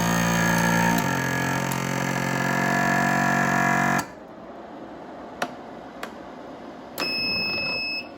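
Weston Pro vacuum sealer's pump running with a steady hum, its note shifting about a second in, then cutting off suddenly about four seconds in. A few sharp clicks follow, then a steady one-second beep near the end.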